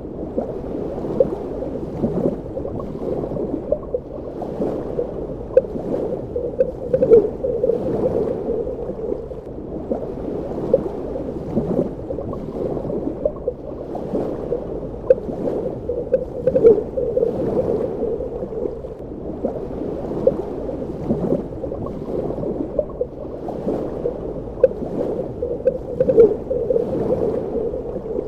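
Underwater ambience: a muffled, steady wash of water with frequent small bubbling pops and gurgles, swelling about every nine or ten seconds.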